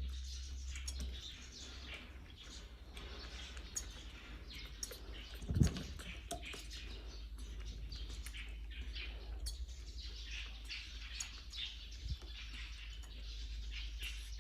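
Many quick, high chirps and squeaks from small animals, scattered all through, over a low steady hum, with one soft thump about five and a half seconds in.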